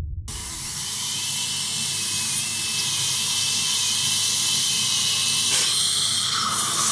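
High-speed dental handpiece whining steadily with a hiss of air and water spray as it grinds down teeth, the preparation shaving for crowns and veneers. A second, lower whine joins near the end.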